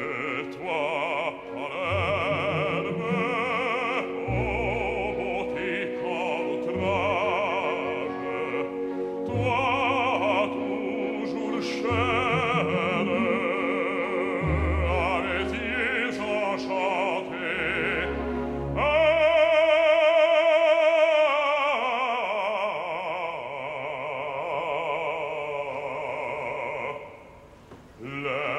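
Operatic bass voice singing with vibrato over orchestral accompaniment, with a loud held high note about twenty seconds in and a brief drop in the music near the end.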